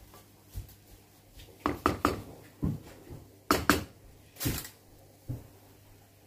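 A spoon knocking and scraping against a metal pot as cooked sweet rice is stirred: about eight sharp strokes at uneven spacing, the loudest ones near the middle.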